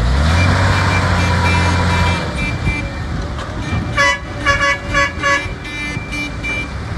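Nissan Diesel dump truck's diesel engine held at high revs for about two seconds as the truck sits in soft mud, then settling. About four seconds in, a vehicle horn gives five or so short toots in quick succession.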